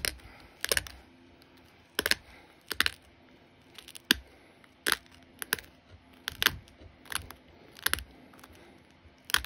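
Copper-tipped pressure flaker working the edge of an opalite glass arrowhead preform: sharp clicks as small flakes snap off, a little over one a second at an uneven pace, some in quick pairs.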